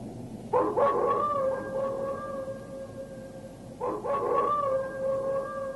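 Two long howls, each sliding up at the start and then holding a steady pitch for a couple of seconds; the second begins about three seconds after the first.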